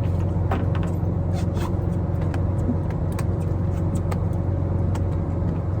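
Boat engine running steadily with a low, even hum, with scattered light clicks and taps over it.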